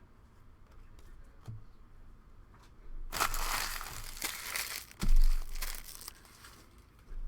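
Packaging crinkling and being crumpled by hand for about three and a half seconds, with a dull thump about five seconds in. A few faint ticks come before it.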